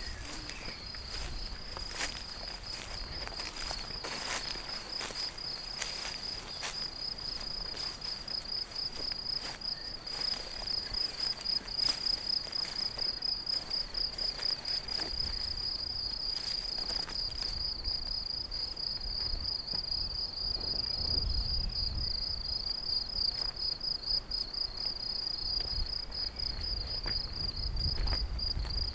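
A cricket chirping steadily, a high pulsing note that never stops, with scattered clicks and a few low rumbles.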